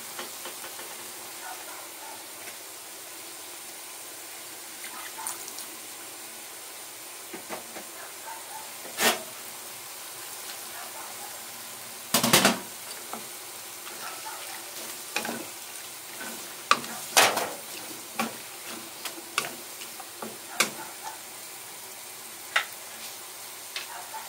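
Beef tripe and vegetables sizzling in a nonstick wok while a wooden spatula stirs them, scraping and knocking against the pan. There are two sharper knocks about nine and twelve seconds in, then frequent quick scrapes and taps.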